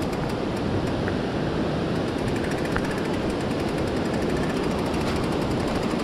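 Mountain bike rolling downhill over a rough, rocky, muddy dirt trail: a steady, fast rattle and clatter of the bike and its knobby tyres over stones and ruts.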